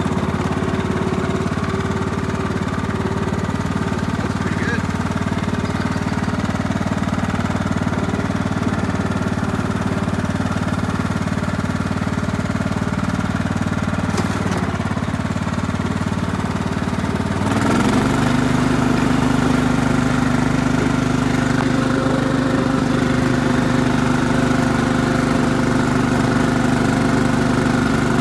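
Craftsman lawn tractor's engine running steadily; about two-thirds of the way through, its note quickly steps up higher and a little louder, then holds at the faster speed.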